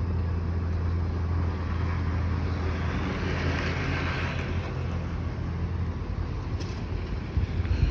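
Road traffic: a vehicle passes close by, its tyre and engine noise swelling to a peak about four seconds in and fading, over a steady low rumble. A couple of sharp knocks near the end.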